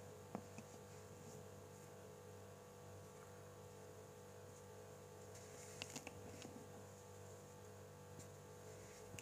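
Steady electrical hum with a few faint crunches and clicks of damp baking soda being squeezed and crumbled by hand, the sharpest about a third of a second in and a small cluster around six seconds in.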